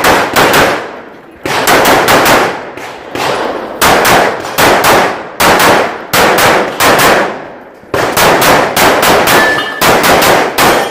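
Handgun fired in rapid strings of two to four shots, the clusters separated by short pauses, during a competitive run through a USPSA stage. Each shot is sharp and trails off briefly.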